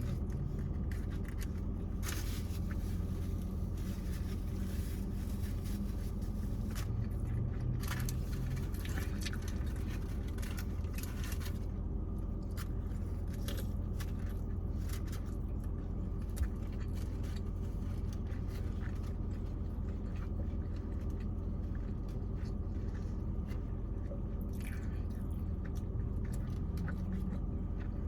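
Close-miked chewing and biting of fast food: soft, wet squishing and crunching at scattered moments over a steady low hum.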